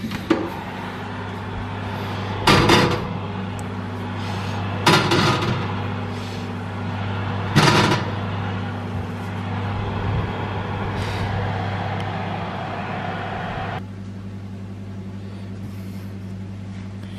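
Baking potatoes being put into an oven: three sharp clunks of potatoes and the oven rack over a steady kitchen hum and rush. The rush drops about three-quarters of the way through as the oven door is shut.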